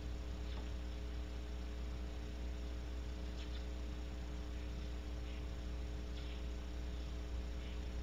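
Steady electrical mains hum from the nest-box camera's audio, with a few faint ticks scattered through it.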